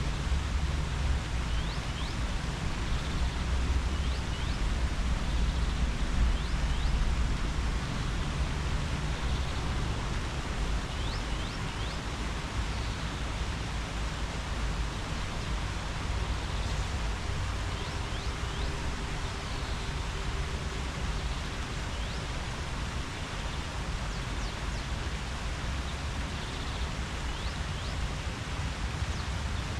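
Leaves rustling in the wind: an even, steady rustling hiss with a low rumble underneath and a few faint, short high chirps scattered through.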